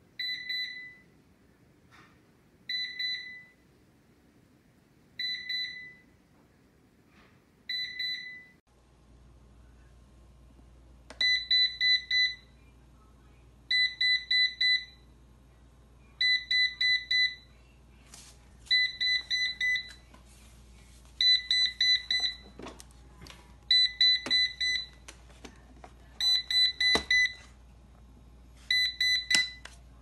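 eufy RoboVac 11S robot vacuum beeping an alert, its red indicator light lit: at first a single short, high beep about every two and a half seconds. From about eleven seconds in, the beeps come in quick groups of four, also about every two and a half seconds, over a steady low hum.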